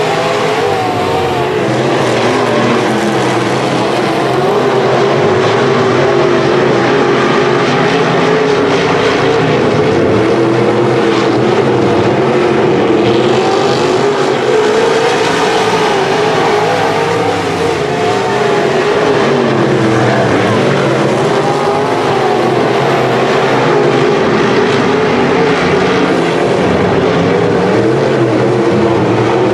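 A field of dirt-track modified race cars with V8 engines running at speed around the oval. Several engines overlap in one loud, continuous sound whose pitch wavers up and down as the cars work through the turns and straights.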